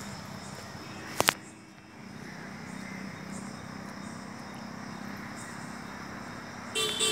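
Steady outdoor night ambience hiss picked up by a phone microphone, with two sharp clicks about a second in. Music begins near the end.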